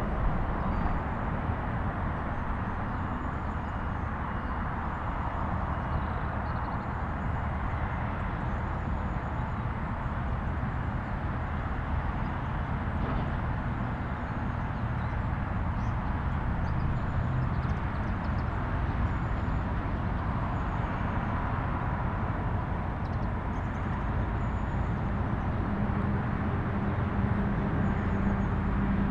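Steady vehicle noise: a continuous rumble and hiss with a low hum, unchanging throughout.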